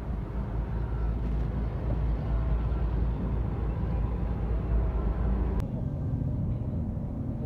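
Low steady rumble of a car heard from inside the cabin. About five and a half seconds in, the deep rumble drops away abruptly with a click, leaving a lighter hum.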